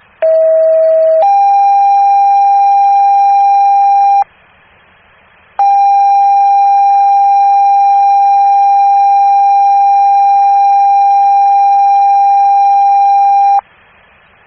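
Fire dispatch paging tones over the radio: a lower tone for about a second steps up to a higher steady tone for about three seconds, then after a short pause of radio hiss a long steady tone runs for about eight seconds. This is a two-tone sequential alert that sets off the fire units' pagers ahead of a dispatch.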